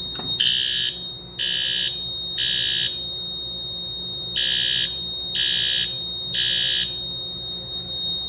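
System Sensor P2RLA fire alarm horn strobe sounding in the temporal-three evacuation pattern: three half-second blasts about a second apart, a pause, then three more, as the system goes into alarm from a manual pull station. A steady high-pitched tone sounds underneath.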